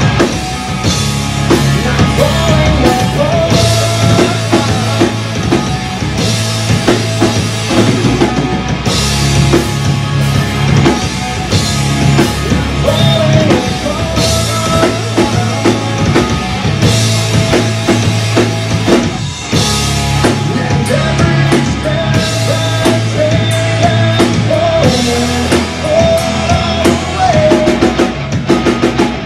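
Live rock band playing loud and steady: electric guitars, bass guitar and a drum kit.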